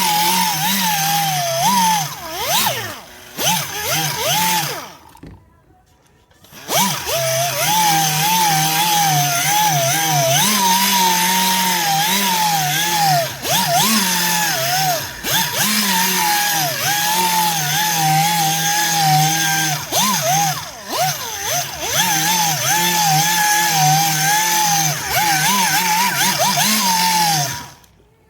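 Power sanding tool wet-sanding an aluminum wheel with 1000-grit paper. The motor runs with a pitch that keeps wavering up and down, stops briefly about five seconds in, then runs again until just before the end.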